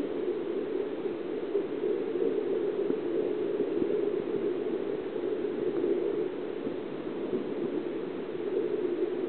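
Steady rushing and bubbling of water in hatchery fish tanks, an even noise with no breaks.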